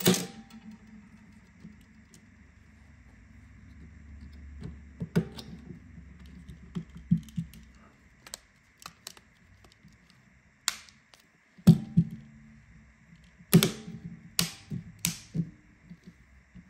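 Irregular small clicks and taps of tools and phone parts being handled during a smartphone reassembly, with a cluster of sharper clacks in the last third, over a faint steady high tone.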